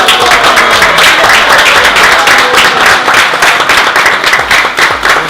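An audience applauding and cheering, loud and steady, for a winner just announced.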